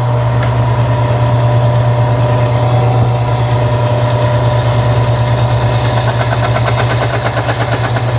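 10-inch electric meat slicer running with a steady motor hum while its spinning blade cuts through meat that is still a little too frozen. Near the end a rhythmic grating joins in as the blade works through the hard meat.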